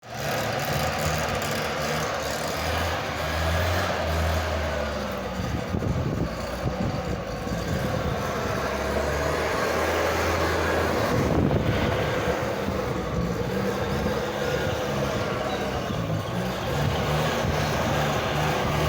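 Robuster F51 backpack pulse-jet thermal fogger running steadily while fogging, an unbroken drone.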